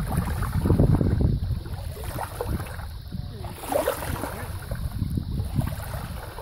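Wind rumbling on the microphone in uneven gusts, louder in the first second or so, over small waves lapping at the water's edge.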